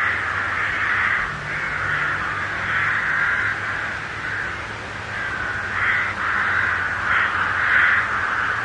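A flock of crows cawing over and over, many calls overlapping into a near-continuous chorus, with a faint low steady hum underneath.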